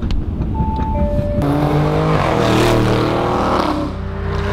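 A car engine revving hard, its pitch sliding up and down; it comes in abruptly about a second and a half in over a low rumble.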